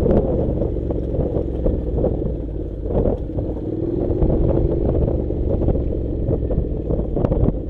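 Motorcycle engine running under load on a loose, rocky gravel track, with stones and the bike's parts knocking and clattering over the bumps.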